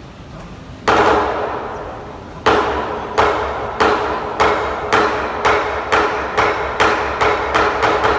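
Lion dance percussion band's cymbals and gong striking, each hit left ringing. One strike comes about a second in. From about two and a half seconds the strikes come again and speed up from under two a second to about three a second.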